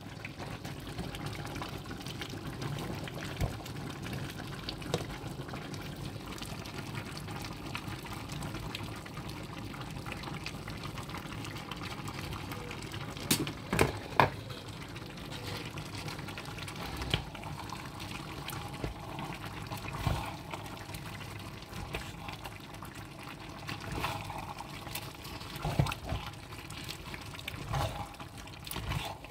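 Pans boiling on the stove, a steady bubbling hiss, with a few sharp clinks of cookware: two close together about halfway through and a few lighter ones near the end.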